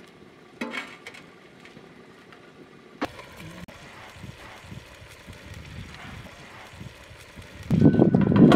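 Metal tray lid being gripped with cloth pot holders and shifted on a cooking pot, a loud rough scraping and rustling that starts near the end. Before that there is only faint outdoor background, with a short knock about half a second in.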